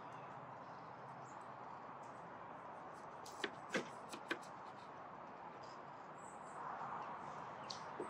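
A steady soft hiss with four sharp clicks close together about halfway through.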